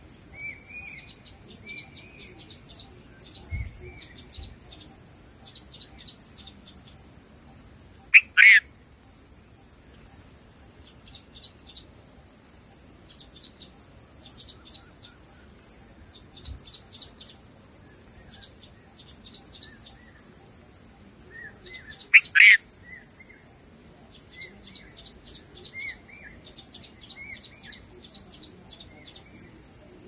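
Steady high drone of insects, with soft repeated chirps from red-vented bulbuls at the nest. Two loud, short bulbul calls come about 8 and 22 seconds in.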